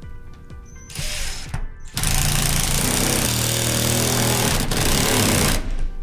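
Cordless impact driver hammering a lag bolt down through a composition-roof mount block and its flashing. There is a brief burst about a second in, then a steady run of about three and a half seconds that stops shortly before the end.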